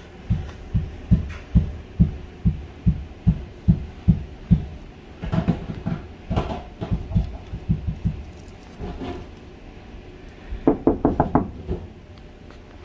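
Knocking on an interior door: a steady run of low thuds, about two or three a second, then a quick burst of sharper, faster raps near the end.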